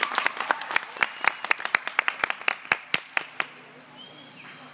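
Small audience applauding with separate claps audible, thinning out and stopping about three and a half seconds in.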